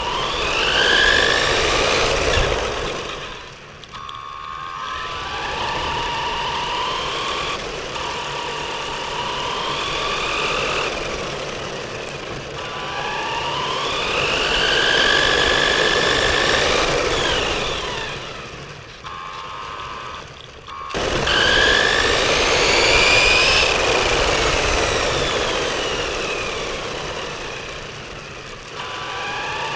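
Six-wheel RC car's electric drive, heard from a camera mounted on the car and running with only one pair of driven wheels. The motor and gears whine, the pitch climbing each time it accelerates and falling when it slows, again and again, over rumble from the tyres on the asphalt.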